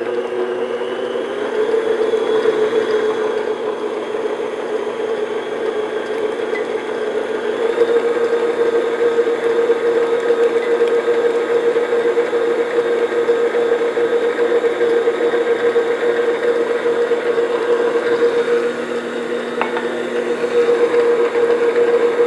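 Electric stand mixer running steadily, its flat beater beating eggs into butter cake batter in a glass bowl; the motor hum settles slightly higher about a second in.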